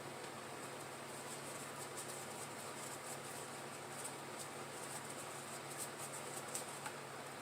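Faint, irregular light ticks and scratches over a steady background hiss with a low hum.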